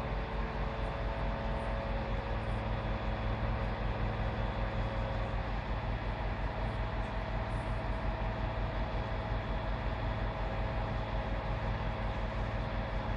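Aerial platform fire truck's engine and hydraulics running steadily as the 22 m telescopic boom extends and raises its basket, a constant low hum with a few steady tones.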